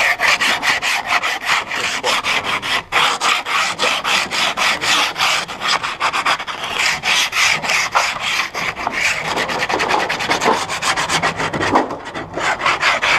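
A tool scraped rapidly back and forth over wood, about five rasping strokes a second, with a brief pause about three seconds in.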